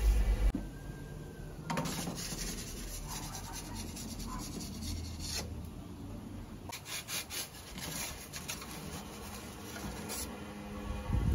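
Scraping and rubbing with scattered clicks and knocks: pizza peels sliding across the stone floor of an Ooni Koda 16 gas pizza oven as a pizza is launched and then turned. A short burst of clicks comes in the second half.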